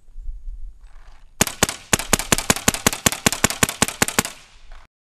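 Gas-powered paintball marker firing a rapid string of about twenty shots, six or seven a second, starting about a second and a half in and lasting about three seconds.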